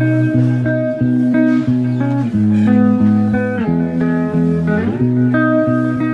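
Background music: a guitar tune over a bass line.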